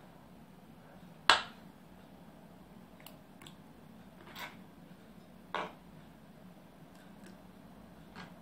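Sharp clicks and taps of a knife, fingers and sausage slices on porcelain and glass as slices of sausage are cut on a plate and put into a glass of water. There is one loud click about a second in, then a scattering of softer ones.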